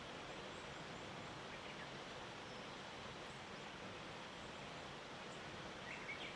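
Steady, faint outdoor morning ambience hiss from a forested mountainside, with a few brief, faint small-bird chirps near the end.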